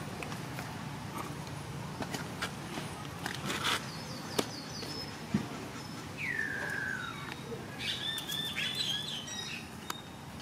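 Birds chirping in short high notes, with one longer call falling in pitch about six seconds in and a run of repeated chirps near the end, over scattered light clicks and taps.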